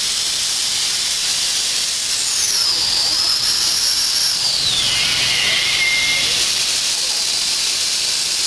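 Steady, loud hiss of steam from an 1875 Baldwin 4-4-0 steam locomotive. Around the middle, a thin whistling tone within the hiss slides apart, one part rising in pitch and the other falling.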